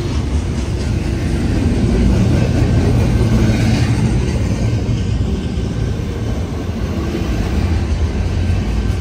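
Freight train passing at close range: a steady, heavy low rumble of the train rolling by.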